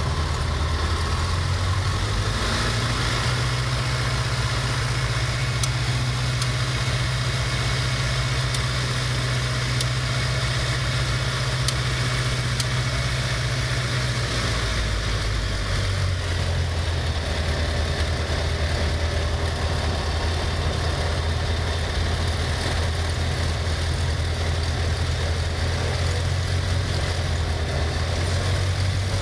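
Light aircraft's piston engine and propeller running steadily at low power, heard from inside the cockpit. About halfway through, the engine note drops to a lower, slower pitch as the revs come down.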